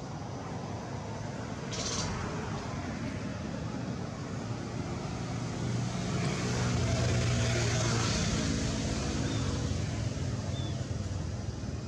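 Engine of a passing motor vehicle: a steady drone that swells to its loudest about seven to eight seconds in and then fades, over a constant low background hum, with a brief sharp click near two seconds in.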